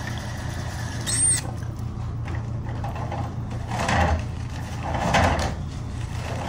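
A steady low hum with a short, high squeak about a second in, then soft rustling and shuffling from someone moving close by.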